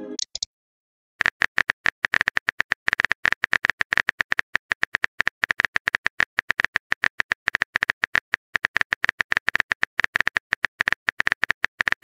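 Simulated phone keyboard typing clicks, a fast, even run of sharp ticks as a text message is typed out. A short notification tone tails off at the very start, before the clicks begin.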